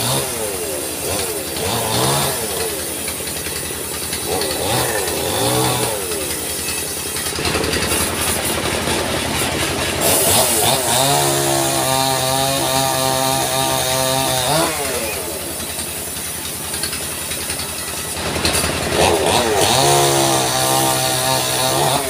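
Engine-driven sawmill running and cutting a log. The pitch slides up and down at first, then holds steady twice, in the middle and near the end.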